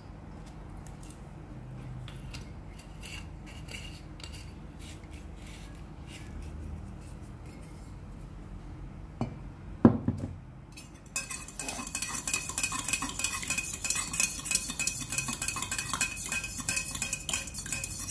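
A metal spoon stirring a chocolate mixture in a stainless steel cup: fast, continuous scraping and clinking with a ringing tone, starting a little after ten seconds in. Before that there are faint ticks and a single thump as a glass syrup bottle is set down.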